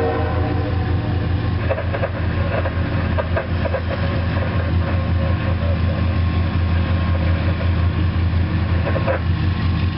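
Diesel train locomotive running with a strong, steady low rumble.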